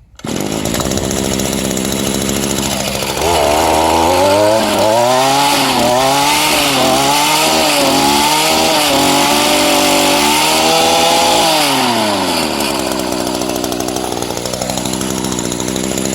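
Echo PE-2000 edger's two-stroke engine running after a fuel system rebuild with a new carburetor: it idles for about three seconds, is revved up and down repeatedly with the throttle, then drops back to idle near the end.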